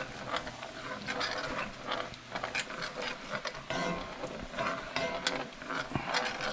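A utensil stirring a simmering lemon-caper pan sauce, scraping and tapping irregularly against the pan as cornstarch slurry is worked in to thicken it.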